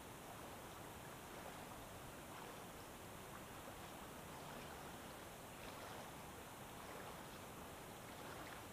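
Faint, steady running water of a small brook, with a few soft swishes over a light hiss.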